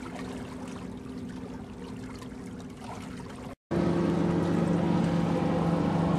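Sailboat underway: a steady low hum with water washing along the hull. The sound cuts out briefly a little past halfway and comes back louder, the hum a little lower in pitch.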